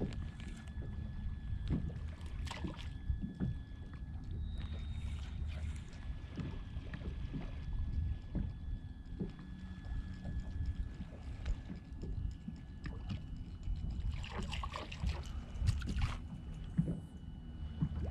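Water lapping and sloshing against a kayak hull, over a steady low wind rumble on the microphone, with occasional small knocks. A brief rustling hiss comes about three quarters of the way through.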